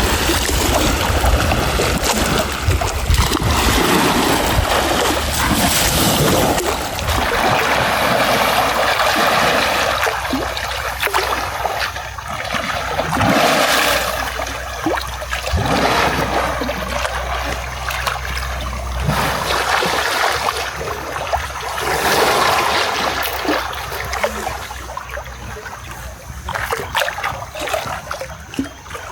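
Elephants splashing in pool water, with trickling and sloshing that swells and fades in surges every few seconds.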